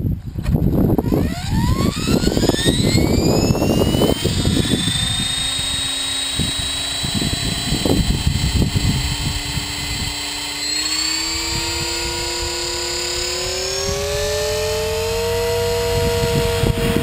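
Blade 450 3D electric RC helicopter spooling up: a whine from the motor and rotor head rises steeply in pitch and levels off, then climbs again partway through. A gusty wind rumble sounds on the microphone during the first few seconds.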